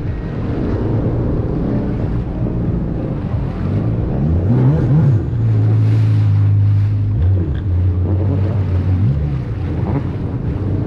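Motorboat engine running underway, with wind and water rush on the microphone. The engine note shifts several times in the middle, holding steady and loudest for a couple of seconds about halfway, then settling lower.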